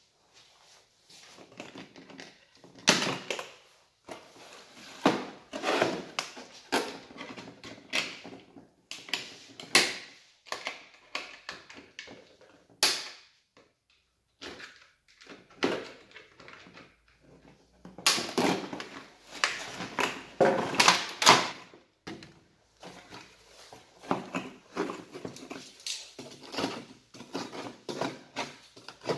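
Cardboard and plastic packaging being handled: irregular rustling, scraping and knocks as a toy chainsaw is unboxed, with its fastening ties cut with pliers.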